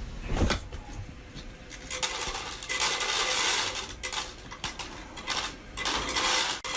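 Clicking and clattering of small hard objects in irregular bursts, loudest in the middle and again near the end.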